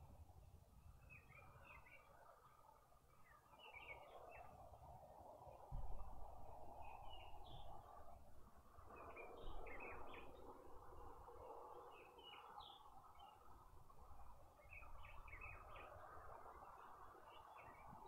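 Faint bird chirps in short clusters every couple of seconds over a low, steady background, with a single thump about six seconds in.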